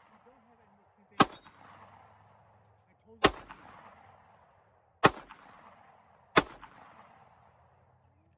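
Four shots from a .22 semi-automatic pistol, fired one at a time about one to two seconds apart. Each crack is followed by a rolling echo that fades over a second or so.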